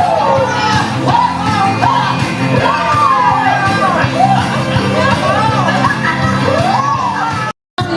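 Live stage-show music with a singer carrying the melody in a large hall. The sound cuts out for an instant near the end.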